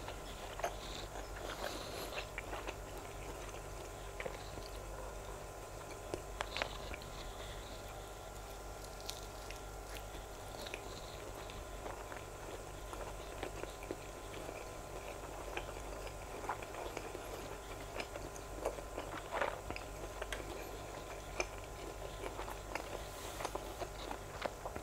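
Close-up chewing of grilled sausage with the mouth closed: soft wet smacks and small clicks at an irregular pace, over a faint steady hum.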